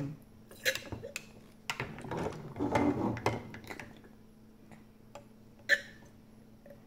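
Light plastic clicks and taps from a plastic dropper knocking against plastic test tubes and a tray, a few scattered over several seconds, the sharpest near the end.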